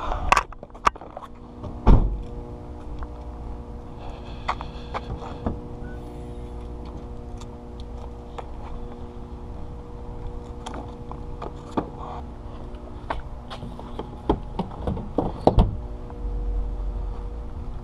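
Steady mechanical hum with scattered clicks and knocks, and loud thunks about two seconds in and again near the end.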